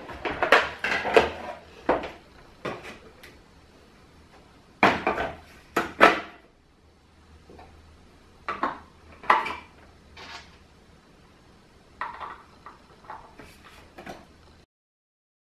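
Hard plastic parts of a toddler ride-on toy being handled and screwed together: clusters of sharp clicks and knocks, plastic against plastic and a screwdriver, with short quiet gaps between.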